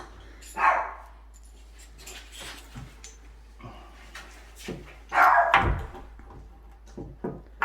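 A dog barks twice: a short bark just under a second in, then a longer, louder one about five seconds in. Light clicks of hardware and screws being handled sound between the barks.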